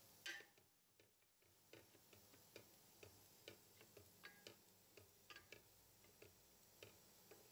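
Wooden spatula knocking lightly against the pot as it stirs rice in boiling water: faint irregular clicks, a few a second, with one louder knock just after the start, over a low hiss.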